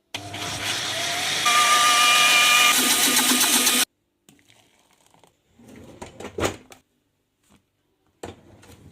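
Countertop blender running for about four seconds, blending moss with yogurt and water into a paint. Its motor whine steps up in pitch and gets louder about a second and a half in, then cuts off suddenly. A few faint knocks follow.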